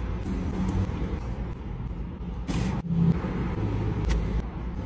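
Steady low rumble of a car's interior with the engine idling, with a couple of brief noisy sounds over it.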